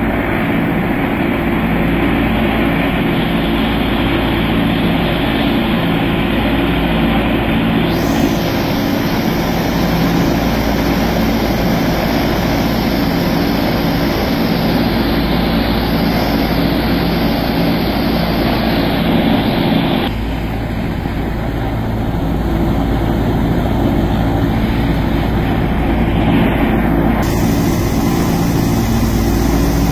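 The Ford Tri-Motor's three radial engines and propellers drone steadily in cruise flight, heard from inside the cabin under a loud rush of air. The air rush turns brighter for a stretch from about a third of the way in to two-thirds through.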